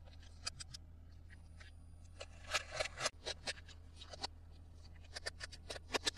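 Irregular small clicks and taps of toy packaging being handled and opened.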